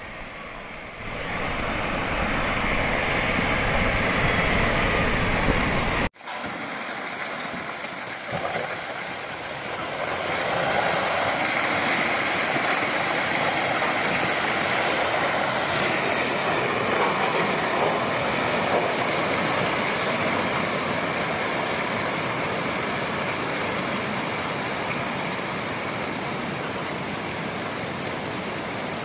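Steady rushing roar of a landslide, rock, mud and water pouring downhill. About six seconds in the sound cuts abruptly to a second slide, which keeps roaring evenly.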